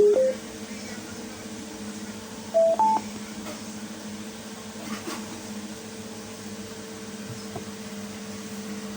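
Mossloo M0824 Bluetooth speaker's prompt beeps: the tail of a rising run of short tones right at the start, then a two-note rising chime about two and a half seconds in, over a steady low hum.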